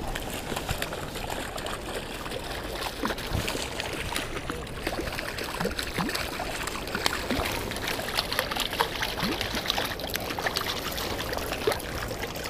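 A hooked trout thrashing and splashing at the surface close to the bank, with many short sharp splashes over the steady rush of river water.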